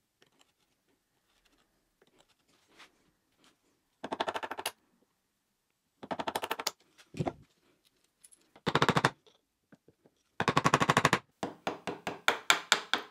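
Steel wood chisel paring and scraping a plywood edge in short rattling bursts. Near the end a wooden mallet strikes the chisel in a quick run of sharp taps, about four or five a second.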